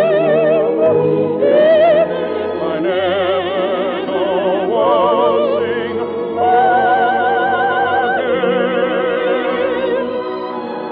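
Operatic singing with orchestra: singers hold long notes with wide, even vibrato over the accompaniment, the closing phrases of an operetta duet. The music eases off in loudness near the end.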